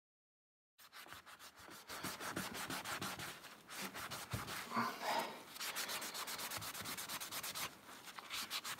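Rapid back-and-forth scrubbing on the surface of a steel cold chisel, cleaning residue off the metal. It begins a moment in, after dead silence.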